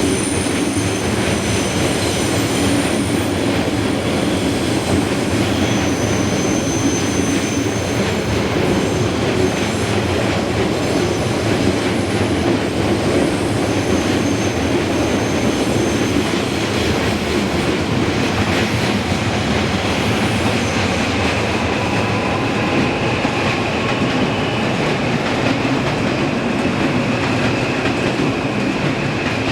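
Electric commuter train running past close by: a steady rumble and clatter of wheels on rail. Thin high wheel squeal comes and goes in the first half, and a steady whining tone sets in about two-thirds of the way through.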